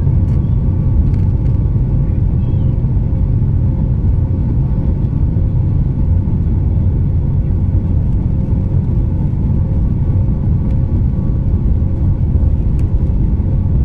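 Inside the cabin of a Boeing 737 MAX jet airliner rolling along the ground: a steady low rumble from the engines and wheels, with a faint steady hum above it.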